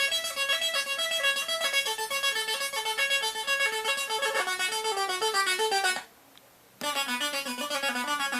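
Electronic sound-effects synthesizer producing a fast sequence of short beeping notes that step up and down in pitch. The notes break off for under a second about six seconds in, then resume.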